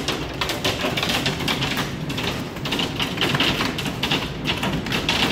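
Hailstones pelting a wooden deck in a dense, steady clatter of rapid small impacts.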